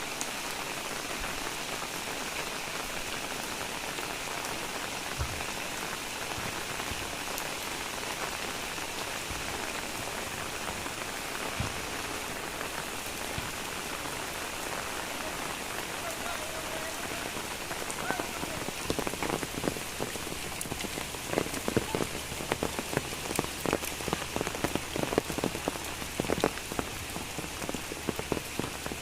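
Steady rain falling as a dense, even hiss. From about two-thirds of the way in, louder separate drops strike a hard surface, many times a second.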